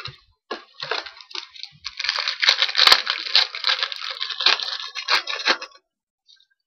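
Plastic trading-card pack wrapper crinkling as it is torn open and crumpled by hand, a dense crackle that builds and then stops shortly before the end.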